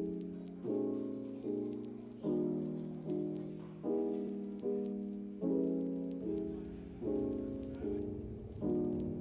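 Background music: a gentle piano piece with chords struck a little more than once a second, each fading away before the next.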